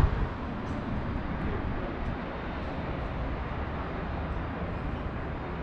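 Steady outdoor background noise of distant town traffic with wind rumbling on the microphone; no single event stands out.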